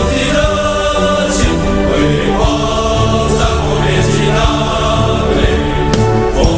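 Baseball team song sung in Mandarin by a chorus of voices over instrumental backing.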